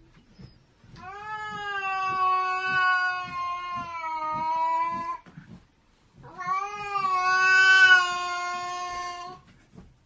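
Angry domestic cat yowling: two long, drawn-out howls, the first about a second in and the second after a brief pause, each held at a steady, slightly wavering pitch.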